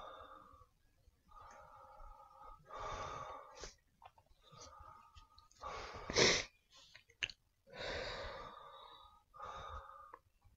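A person's breath sounds close to the microphone, about seven in a row, the loudest about six seconds in.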